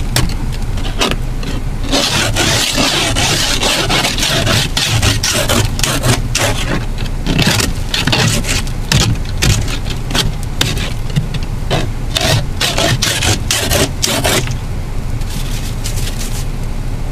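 Ice scraper rasping over a windshield glazed with freezing-rain ice, in repeated irregular strokes, heard through the glass from inside the car.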